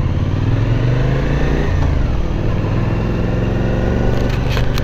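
Suzuki V-Strom 1050's V-twin engine running under way on the move, its pitch rising and then dropping sharply a little under two seconds in, then holding steady. Several sharp clicks come near the end.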